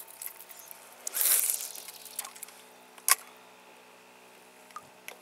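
A cast with a spinning rod and reel: a loud swish about a second in, then one sharp click about two seconds later, over a faint steady hum.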